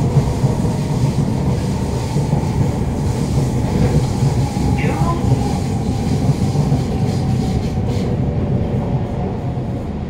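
Siemens C651 MRT train running at speed, heard from inside the carriage: a steady rumble of wheels, rails and traction motors. A brief wheel squeal comes about five seconds in.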